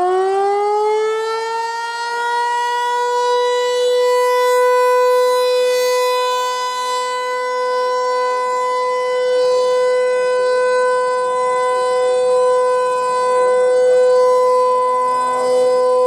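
Federal Signal 508 rotating outdoor warning siren sounding its weekly test: it is still winding up as the sound begins, its rising pitch levelling off within about three seconds into a loud, steady tone. The loudness swells and dips slightly as the head turns.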